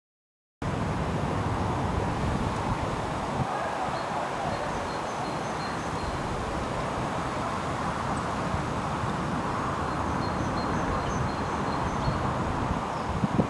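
Outdoor park ambience: a steady rush of distant road traffic with faint, high bird chirps now and then. It cuts in abruptly about half a second in, after a moment of dead silence.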